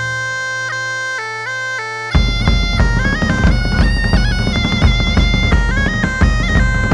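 Intro music: a bagpipe melody stepping over a steady drone, with drums and fuller backing coming in about two seconds in.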